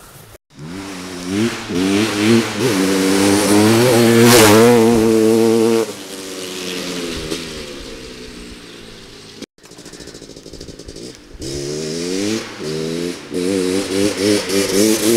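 Honda CR500's big single-cylinder two-stroke engine pulling hard as the dirt bike accelerates, its pitch climbing in several rising sweeps as it shifts up through the gears, then falling back and running quieter. After a sudden brief break it accelerates through the gears again.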